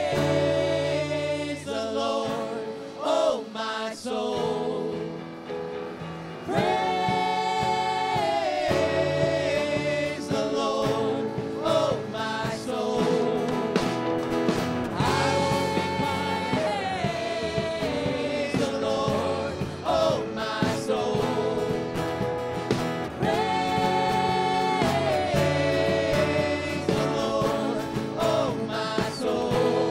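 Gospel worship song: voices singing long held phrases that recur every few seconds, over steady instrumental accompaniment.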